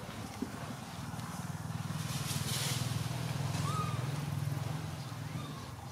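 A motor vehicle's engine hum, low and steady, swelling for a few seconds in the middle and then easing off as it passes. There is a short hiss about two seconds in.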